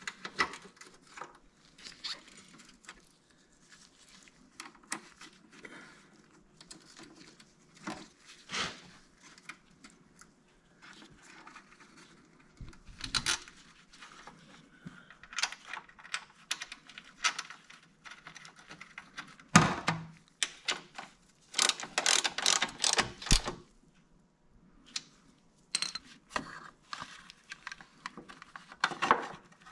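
Scattered clicks, taps and rustling as plastic trim covers are handled and pressed into place around a motorcycle's front fork, with a sharp knock about two-thirds through and a quick run of clicks just after it.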